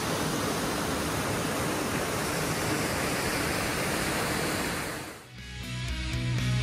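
Steady rushing of a waterfall pouring into a rock plunge pool. About five seconds in it cuts off and music begins.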